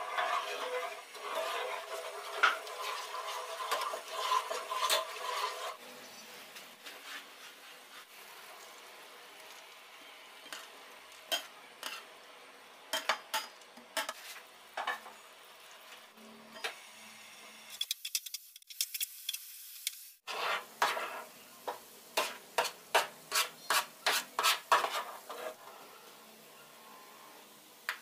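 Sugar syrup bubbling in a non-stick pan as a spoon stirs it, then a spoon scraping and clinking against the pan while stirring fried boondi through the syrup, with a quick run of clicks near the end.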